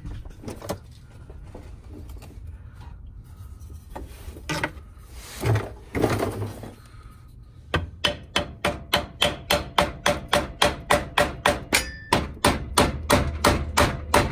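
Hammer blows on a wooden block, driving the steering shaft coupling onto the steering gear's splines. A few strikes come right at the start, then a steady run of about three blows a second through the second half.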